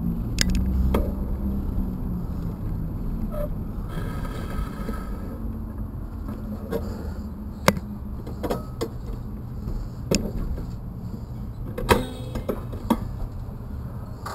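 Low, steady rumble of street traffic, with several sharp clicks and knocks through the second half.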